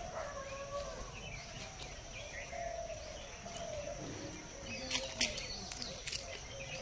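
Outdoor ambience with birds chirping and a steady high-pitched whine, and a few sharp clicks about five seconds in.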